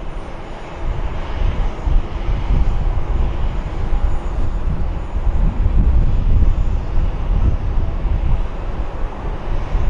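Boeing 737-800's CFM56-7B turbofan engines running: a steady, loud, low rumble that swells over the first second or two.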